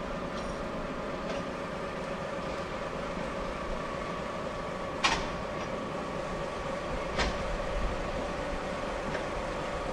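Sagano Scenic Railway torokko sightseeing train running: a steady rolling noise with a faint hum, and two sharp clacks about five and seven seconds in, the first the louder.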